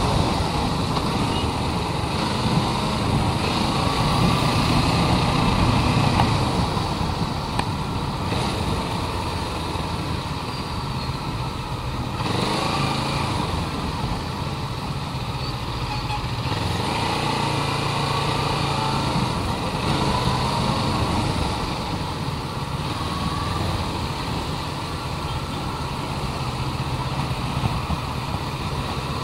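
Motorcycle engine running while it is ridden, recorded by an action camera strapped to the rider's chest, with a steady hiss of road and wind noise over it.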